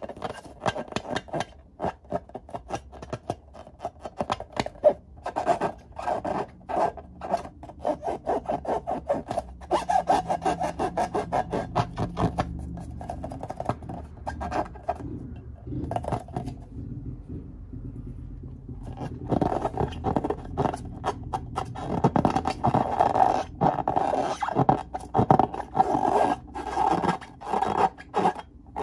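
Hands rubbing and squeezing filled latex balloons. Rapid, squeaky rubbing strokes come in quick runs, with a short pause a little past halfway.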